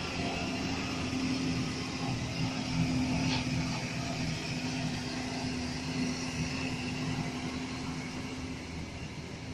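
Diesel engine of a Hino tractor unit hauling a loaded flatbed semi-trailer, running with a steady drone as it pulls slowly past, easing off a little near the end.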